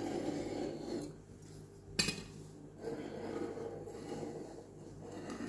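A kitchen knife cutting rolled pastry dough around an upturned porcelain plate, the blade rubbing and clinking against the plate's rim, with one sharp clink about two seconds in.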